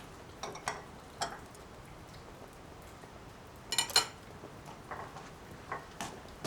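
Dishes and utensils clinking: a few separate clinks, then a quick cluster of bright, ringing clinks a little past the middle.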